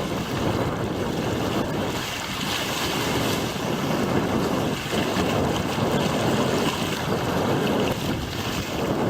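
Wind buffeting the microphone over the rush and splash of water along the hull of a small sailing outrigger built from a surfski, under way in strong wind.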